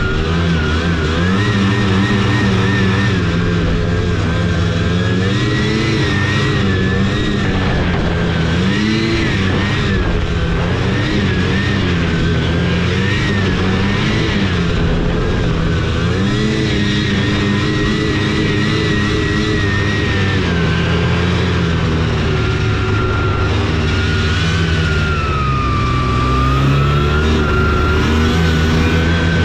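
Taiga Varyag 550 V SE snowmobile's two-stroke engine running under way, its speed rising and falling again and again as the throttle is worked.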